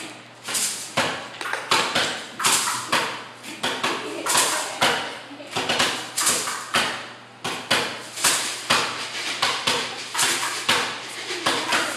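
Drumsticks striking drums in a loose, uneven beat of about two hits a second, each hit sharp and quickly dying away.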